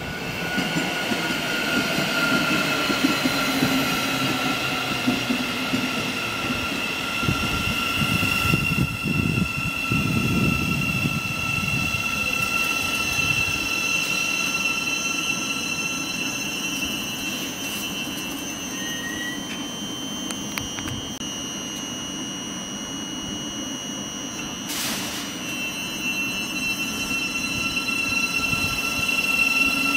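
Great Northern electric multiple unit running past close by, its wheels rumbling on the rails under a steady high-pitched whine that falls slightly in pitch in the first few seconds.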